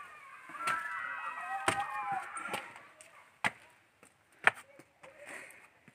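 A few sharp knocks of footsteps over loose stone blocks on a forest path, the loudest about four and a half seconds in. Faint high-pitched calls run through the first two seconds or so.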